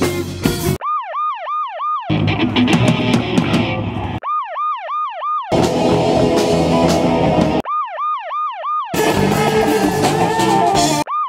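Rock music with electric guitars, bass and drums, cut hard against short bursts of a fast yelping electronic siren, a rapid up-and-down wail about three times a second. The siren cuts in three times, for just over a second each, and a fourth burst starts at the very end, with the music in between.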